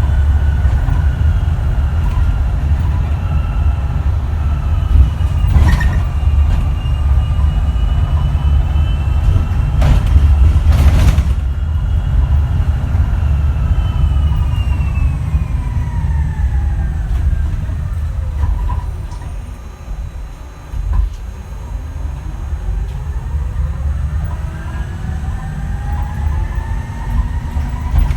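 Switch Metrodecker EV electric bus's ZF AxTrax electric drive motors whining over a heavy road rumble, heard on board. The layered whine holds steady, falls in pitch as the bus slows almost to a stop about two-thirds of the way in, then rises again as it pulls away. There are a couple of sharp knocks from the bus body on bumps early on.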